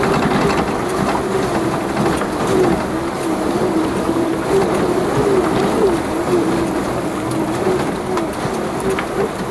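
Off-road vehicle engine running steadily at low revs, its note wavering a little, over a continuous rushing noise as it works along a flooded lane.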